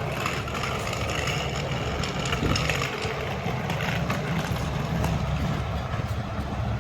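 A large truck's engine idling steadily, a low even hum.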